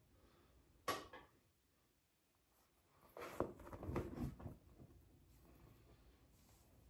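Faint rustling and flapping of a cloth towel being handled and spread open: one sharp rustle about a second in, then a cluster of rustles from about three to four and a half seconds in.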